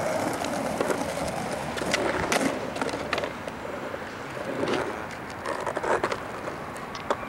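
Skateboard wheels rolling on asphalt, then the board clattering onto the pavement and landing upside down after a failed trick, with a few sharp clacks about two seconds in and scattered clicks later.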